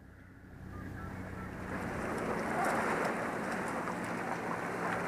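Shallow water sloshing and lapping around a plastic kayak as it is pushed into the water, with wind on the microphone; it swells up over the first couple of seconds, over a faint low steady hum.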